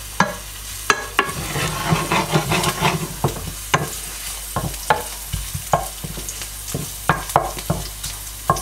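Crushed, skin-on garlic cloves and curry leaves sizzling in hot oil in a frying pan, stirred with a wooden spatula that taps and scrapes against the pan about once or twice a second.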